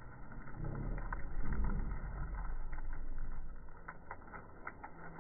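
Light, irregular clicks of several dogs' claws on a hard tiled floor as they run and play, over a low rumble that is strongest in the first half.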